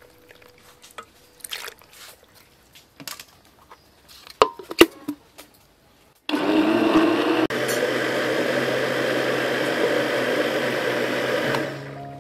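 A few light knocks and clicks on a glass blender jar holding ice and pumpkin, then about six seconds in an electric blender starts and runs steadily for about five seconds, puréeing pumpkin, taro, ice and coconut milk, before stopping.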